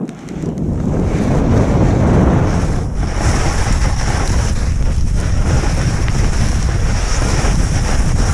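Loud wind rushing over the body-worn camera's microphone as a skier picks up speed down a steep snow chute, mixed with skis hissing and scraping through the snow. The rush builds within the first second, then stays steady.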